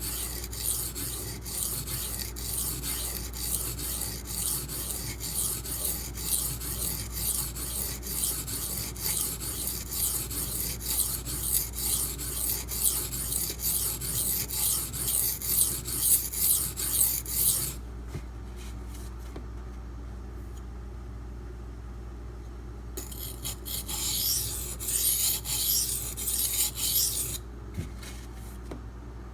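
D2 steel knife blade stroked back and forth on a sharpening stone in quick, even scraping strokes, grinding one side longer to even out a lopsided bevel. The strokes stop about two-thirds of the way in, then start again for a few seconds near the end.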